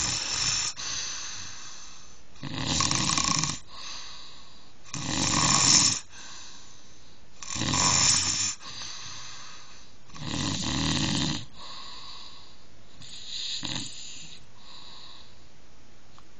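Snoring: six snores about every two and a half seconds, the last one shorter and weaker.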